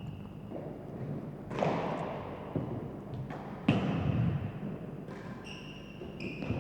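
Real tennis rally: the solid ball is struck by rackets and rebounds off the court walls and floor, four or five hard knocks with a hall echo, the loudest about halfway through. A few short high squeaks come near the end.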